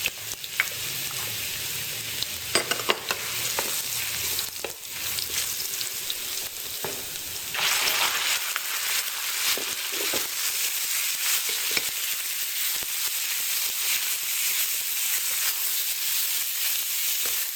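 Chopped garlic sizzling in hot oil in a pan, stirred with a spatula that clicks and scrapes against the pan now and then. About seven and a half seconds in the sizzling suddenly grows louder and stays that way.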